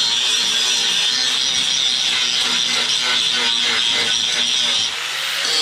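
Corded DeWalt angle grinder running against a steel plate: a loud, steady grinding noise that eases off near the end.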